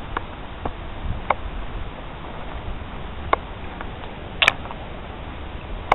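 Footsteps through dry fallen leaves and twigs, with scattered crackles as leaves and small sticks snap underfoot, and a sharper double crack about four and a half seconds in.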